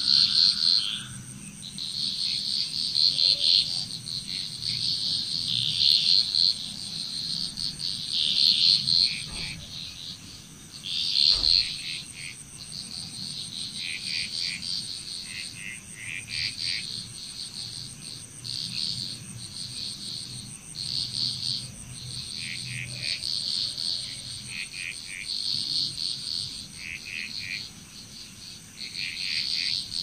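A chorus of frogs calling in short, rapidly pulsed bursts, one after another, with a steady high-pitched insect trill behind.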